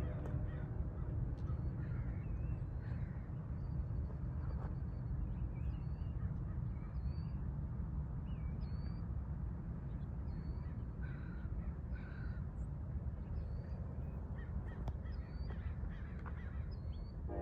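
Steady low rumble of a passenger train rolling by on the tracks, with short high chirps of small birds repeating about once a second over it.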